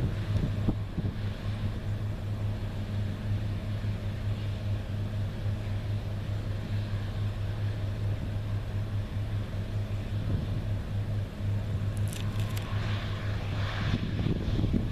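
New Holland CR9060 twin-rotor combine running steadily while harvesting soybeans: an even, unchanging drone with a low hum. A short rustling clatter comes near the end.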